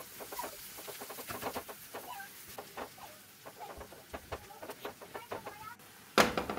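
Green spatula stirring and scraping a thick, wet masala on a tawa: a string of short squelches and scrapes at an uneven pace, with one louder knock about six seconds in.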